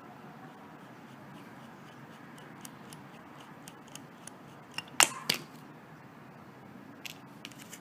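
Small scattered clicks and ticks of a screwdriver working the tiny five-point screws at the bottom of an iPhone 5 as they are loosened, with a sharper double click about five seconds in.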